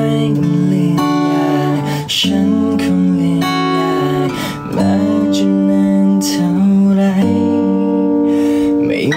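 Acoustic-electric guitar strummed in sustained chords that change every second or two, with a man singing along.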